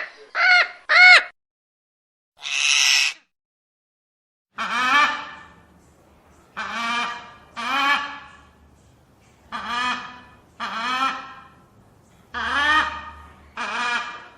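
Parrot calling: three quick squawks with a rise and fall in pitch, a harsh screech, then a run of longer squawks about one a second, each falling away in pitch.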